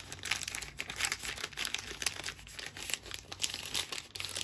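Packaging crinkling and rustling in handling as diamond-painting tools are unpacked, a dense run of crackles.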